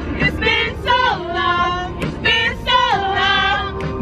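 A song playing: a high female voice singing held, gliding notes over backing music.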